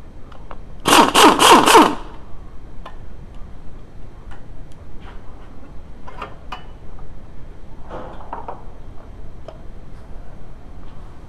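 Impact wrench hammering on the axle bolt at the centre of the front wheel hub in one loud burst of about a second, starting about a second in. After it come scattered light metal clicks and knocks as the axle shaft is worked out of the hub.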